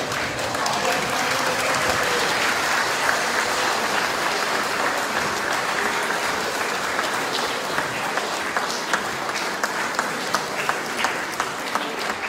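Large crowd applauding. In the last few seconds it settles into more rhythmic clapping, with distinct claps about two to three a second.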